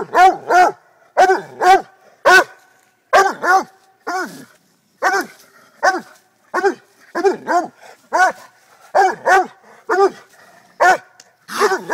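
A dog barking repeatedly at a trapped raccoon, the barks often coming in quick pairs, about two a second without a break.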